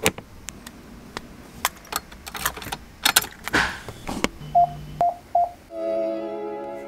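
Clicks of the ignition key being turned and handling in the car, then three short electronic beeps about four and a half seconds in, followed near the end by music starting to play through the newly fitted car stereo speakers.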